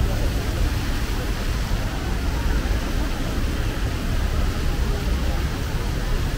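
Busy city street ambience: steady traffic noise, heaviest in the low end, with scattered voices from a waiting crowd.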